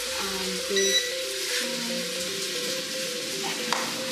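A single short electronic beep from the wall oven's control panel as a timer button is pressed, about a second in, over soft background music and a steady hiss.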